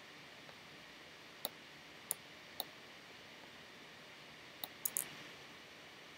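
Computer mouse clicking while selecting and dragging a keyframe: six short, sharp clicks, the last three in a quick run near the end, over a faint steady hiss.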